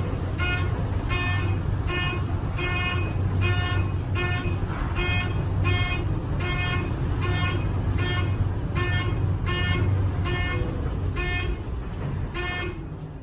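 Building fire alarm horn sounding in short pitched pulses about twice a second, over the low rumble of a fast TKE traction elevator car travelling in its hoistway. The pulses stop and the rumble eases near the end as the car slows.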